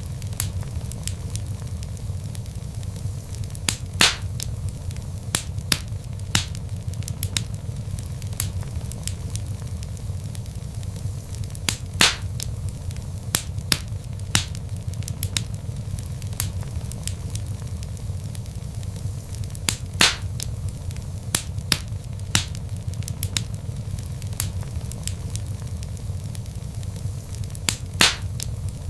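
Log fire crackling in a fireplace: a steady low rumble of burning with frequent small crackles, and a louder pop about every eight seconds.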